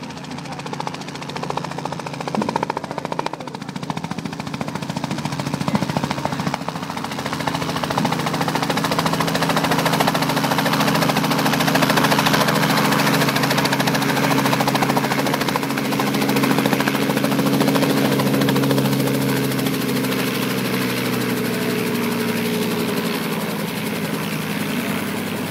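Light two-bladed helicopter approaching, growing louder over the first ten seconds or so, then hovering low and setting down close by. The rotor and engine run steadily, easing slightly near the end once it is on the ground.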